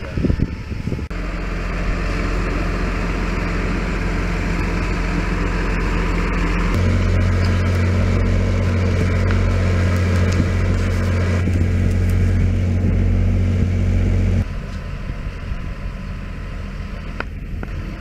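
A machine engine running steadily with a low hum, on a construction site. Its note changes abruptly about a second in and again about seven seconds in, where it grows louder, then drops back to a quieter hum near the end.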